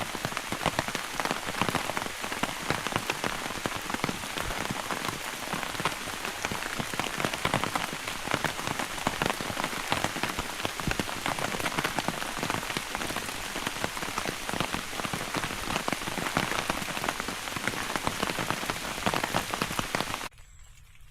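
Rain storm falling on a camping tarp: a steady hiss full of separate drop hits on the fabric. It cuts off suddenly near the end.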